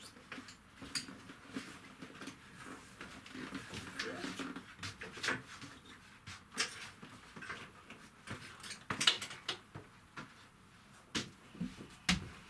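Irregular knocks, clicks and rustling of bags and gear being handled during packing, with the loudest knock about nine seconds in and a few more near the end.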